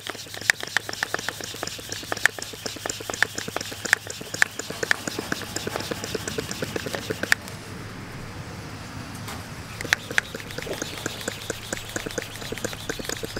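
Hand socket ratchet clicking in quick runs, with a few louder clicks, as a lock nut is tightened down on a 5/8-inch all-thread wheel axle.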